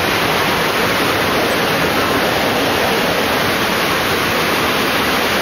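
A large staged flood of water rushing and pouring down a set, a loud, steady rush.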